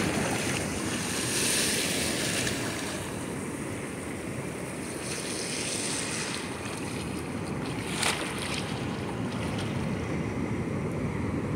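Ocean surf washing in, a steady rush of breaking waves with wind buffeting the microphone, and a brief sharp click about eight seconds in.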